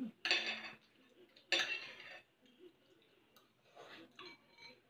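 Spoons and forks clinking and scraping on ceramic plates while people eat, with two short louder scrapes in the first two seconds, then only faint light ticks.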